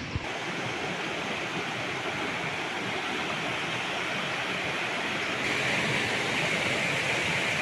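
Rushing water, a steady even noise that becomes suddenly louder and brighter about five and a half seconds in.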